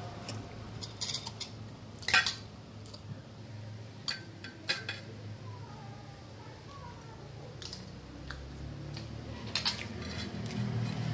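Stainless steel spoons clinking and scraping against stainless steel bowls while ghugni is spooned over idli: scattered sharp clinks, the loudest about two seconds in, with a few more near the middle and near the end.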